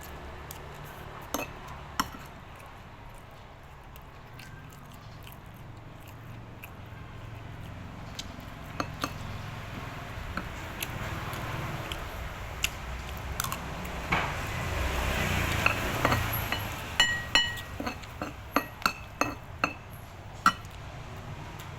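Scattered clinks of metal utensils against dishes, with a quick run of sharp, ringing clinks near the end.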